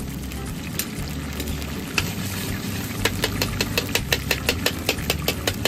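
Chicken pieces frying in hot oil in a karahi over a gas burner, above a steady low rumble. From about three seconds in, the oil crackles and spits sharply, at about five pops a second.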